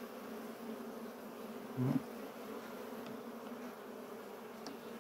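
Honeybees buzzing around an opened hive in a steady, even hum.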